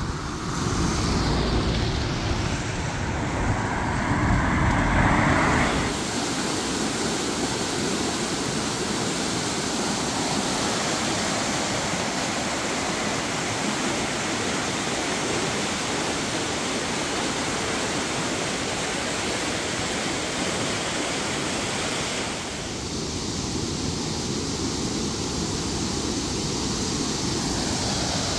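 Road traffic rumbling for about the first six seconds, then the steady rush of a fast-flowing stream and a small waterfall.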